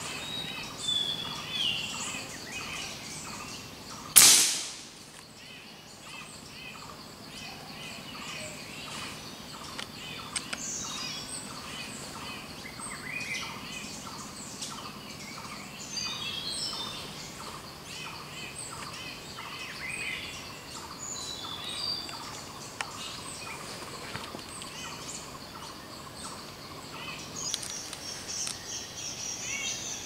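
A single sharp air-rifle shot about four seconds in, with a short ring-off, followed by many jungle birds chirping and calling over a steady high-pitched background drone.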